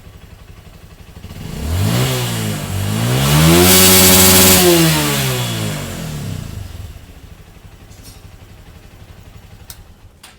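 Honda CRF150's single-cylinder four-stroke engine idling, then revved hard twice, the second rev held high for about a second before dropping back to idle. It is a free-rev to the rev limiter after an ECU remap, which now lets the engine reach about 11,000 rpm.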